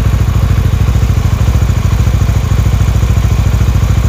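Honda Winner X's 150 cc single-cylinder engine idling steadily, heard close up beside the crankcase, with even, rapid pulsing. It runs on Motul 5100 10W-30 oil, and the owner finds it not very rattly with that oil.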